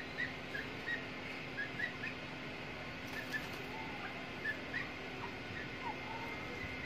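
Francolin (teetar) chicks peeping: short, high cheeps at irregular intervals, with a few lower, falling notes in the second half.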